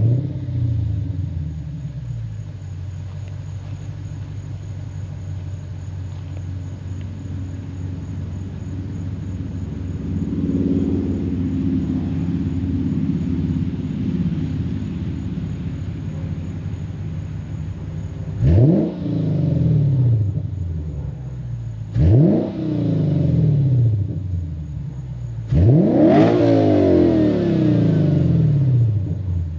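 Lexus GS-F's 5.0-litre V8 through a Revel Medallion (Tanabe) axle-back exhaust: it fires up, settles into a steady idle, then is revved three times, the last rev held longest. A deep rumble with no rasp.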